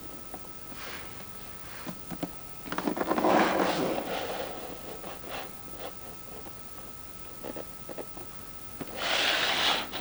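Cardboard and plastic packaging of a boxed toy figure being handled: scraping and rubbing with light clicks and taps. There is a longer scraping stretch a few seconds in and a sharp hissing slide near the end.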